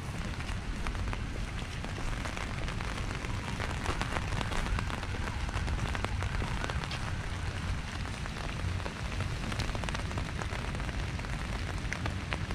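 Steady rain on wet paving and puddles: an even hiss speckled with many small drop ticks, over a constant low rumble.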